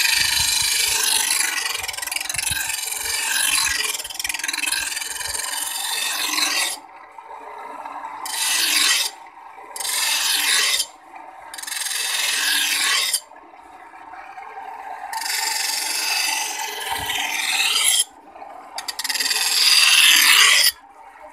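Curved steel blade being ground on a pedal-driven grinding wheel, throwing sparks. One long grinding pass of about seven seconds, then five shorter passes of one to three seconds each, with the steady whir of the turning wheel between them.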